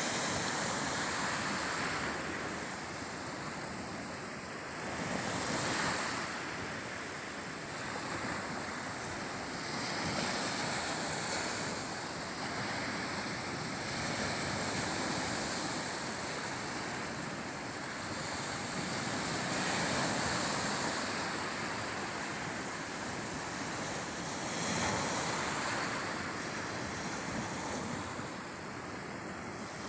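Surf: waves washing ashore, the rushing noise swelling and easing every few seconds.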